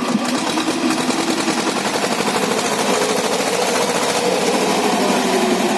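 UAZ Bukhanka van's engine running under load, a fast rattling pulse with its pitch creeping up a little around the middle.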